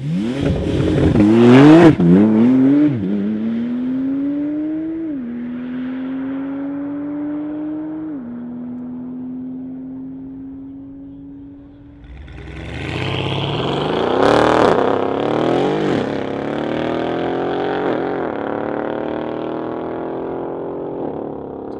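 Porsche 911 Turbo S twin-turbo flat-six launching at full throttle and pulling away, its pitch climbing and dropping back with each quick upshift as it fades down the track. About twelve seconds in a second car launches just as hard, shifting up several times as it runs away.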